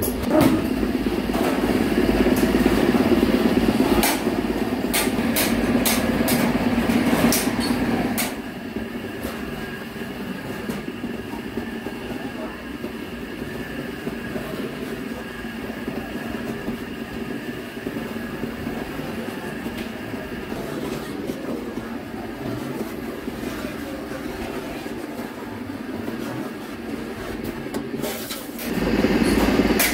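Rotary sheet-metal beading machine running while the edge of a stainless steel stove top is fed through its rollers. It rattles loudly with metallic clicks for the first eight seconds or so, settles to a steadier, quieter hum, and gets loud again near the end.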